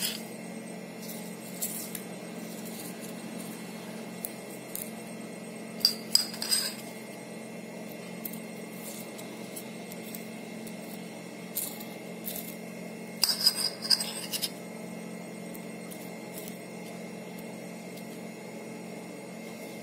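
Metal spoon clinking and scraping now and then as tempering is spooned over a steamed dhokla, loudest in two short clusters about six and thirteen seconds in, over a steady low hum.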